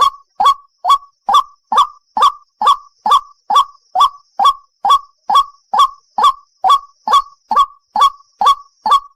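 White-breasted waterhen (ruak-ruak), a single bird calling: one harsh note repeated steadily, a little over two a second, each note sliding down in pitch.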